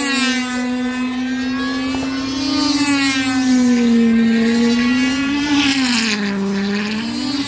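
Small glow-fuel two-stroke engines of control-line combat model airplanes running flat out: a steady, high-pitched buzzing drone that wavers slowly up and down in pitch.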